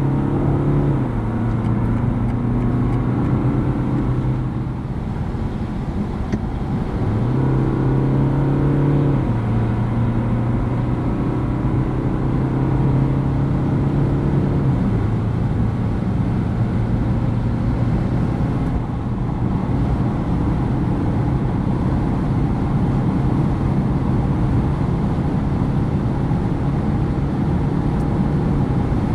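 BMW 420d G22's four-cylinder turbodiesel engine droning under road and wind noise at autobahn speed, heard from inside the car. Its pitch drops in steps at gear changes about a second in, around nine seconds and around fifteen seconds, then settles into a steady drone.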